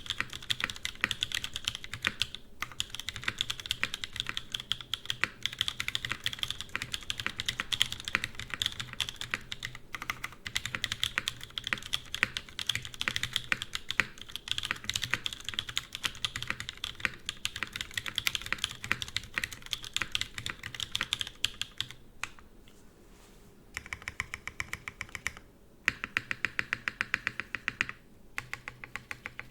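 Smith & Rune Iron180 mechanical keyboard with a carbon-fibre plate and Whipped Cream linear switches (broken-in Creams) being typed on: a fast, steady stream of keystrokes. The typing stops for about two seconds around 22 seconds in and again briefly near 26 seconds, then resumes with a quick, even run of strokes.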